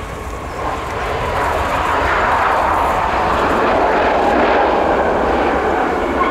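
Boeing 737 MAX's CFM LEAP-1B jet engines on the landing rollout, their roar swelling about a second in and staying loud, with a faint whine that slowly falls in pitch, typical of reverse thrust being applied after touchdown.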